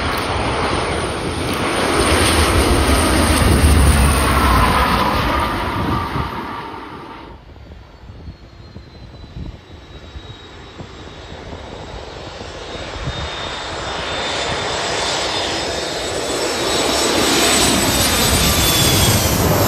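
Fixed-wing aircraft engines passing close by, swelling to a peak and fading with a falling whine; after an abrupt break, a second aircraft sound builds up again to a peak near the end.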